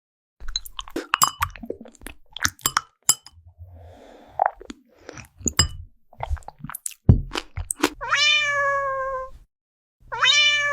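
A cat crunching food in crisp, irregular bites, then meowing twice near the end: long calls that jump up and then slide slowly down in pitch.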